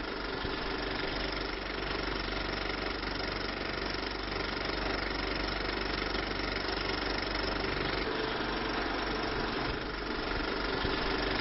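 Steady mechanical whirring hum of a small motor running without a break.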